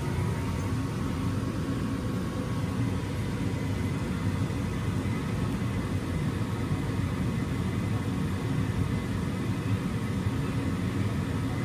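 Carrier gas furnace's draft inducer motor running with a steady hum and rumble after a call for heat. The furnace goes no further than this and then flashes code 31: the pressure switch has not closed.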